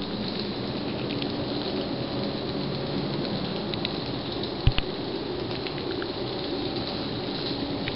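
A steady rushing outdoor noise with no clear pitch or rhythm, the kind of rumble the recordist hears as strange sounds in the sky. About halfway through comes one sharp click of a finger touching the camera's microphone.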